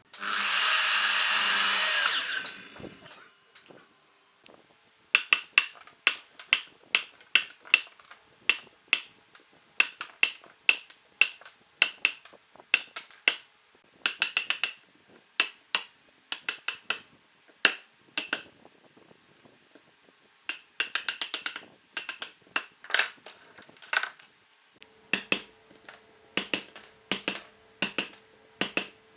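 A power tool runs in a short burst for about two and a half seconds and stops. Then comes a long run of sharp, ringing knocks, several a second in uneven clusters with brief pauses: hand-tool work on wood.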